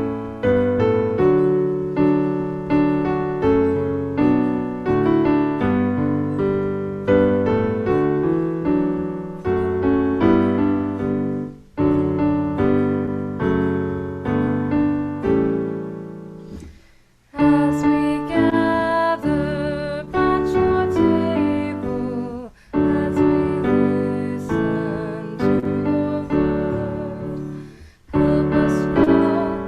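Piano playing a slow piece. It breaks off briefly a little past halfway, then resumes with a brighter sound and a wavering melody line above the chords.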